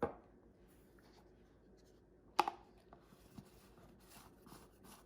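Kitchen items being handled on a counter: a sharp knock at the start, a louder knock about two and a half seconds in, then faint taps and rustling. No blender motor is running.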